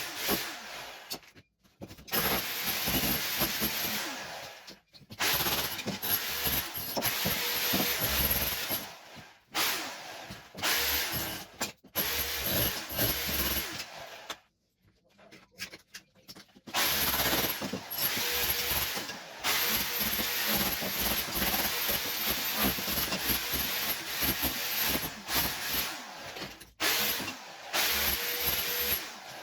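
Electric power tool, probably a demolition or rotary hammer, run in repeated bursts of a few seconds each with short stops between, while old kitchen wall tiles are stripped off.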